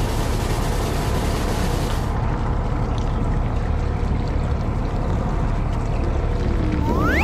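Steady low drone of a fishing boat's machinery running during night squid fishing, with water noise over it. A short rising tone sweeps up in pitch near the end.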